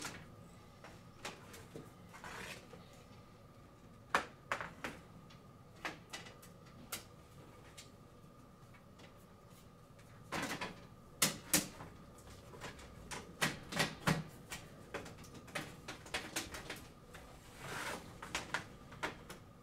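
Irregular clicks, taps and light knocks from handling and fitting together the metal-framed stained-glass panels of a billiard light fixture, with a couple of brief scraping rubs as panels shift against each other.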